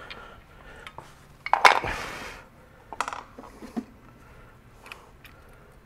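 Metal and plastic parts knocking and clicking as the take-up reel's drive unit and its bracket are handled against the printer stand's crossbar: one louder clunk about one and a half seconds in, then a few light clicks.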